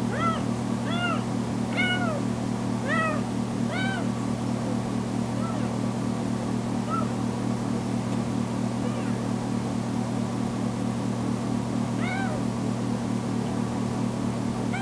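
Kitten meowing loudly and repeatedly, each call rising and falling in pitch. The calls come about once a second at first, turn fainter and sparser in the middle, and pick up again near the end, over a steady low hum. This is a freshly spayed kitten crying at being left alone in her crate.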